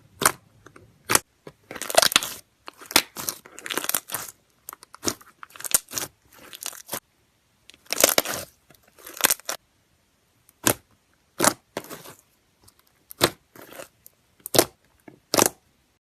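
Clear slime being squeezed, pressed and stretched by hand, in irregular bursts: some short and sharp, some lasting about half a second, with brief pauses between.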